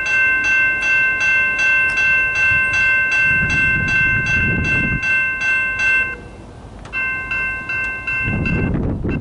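Norfolk Southern locomotive horn sounding a long blast that breaks off about six seconds in and sounds again for a couple of seconds, over the steady dinging of a grade-crossing bell about three strokes a second, with the low rumble of the passing train.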